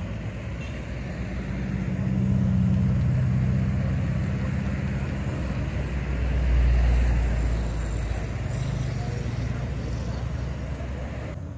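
Road traffic: motor vehicles passing, with a low engine rumble that swells about two seconds in and peaks again around six to seven seconds before fading.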